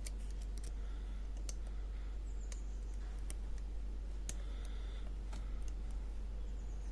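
Lock pick clicking and scraping against the pins inside a Yale padlock's cylinder as it is picked, with a dozen or so irregular small metallic clicks.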